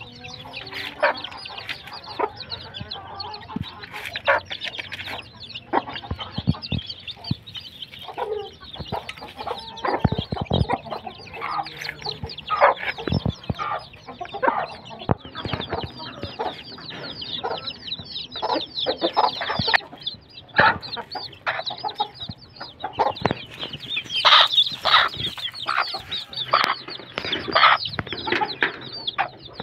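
A hen clucking among her chicks, which peep continuously in quick, high chirps, busiest a little over three-quarters of the way through.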